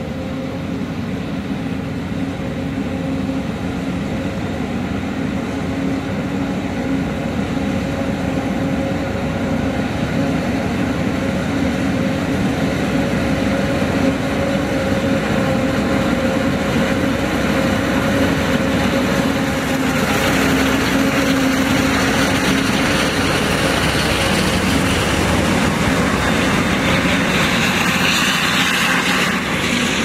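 Heavy diesel machinery running steadily, with a constant engine hum. A rushing hiss grows louder about two-thirds of the way through.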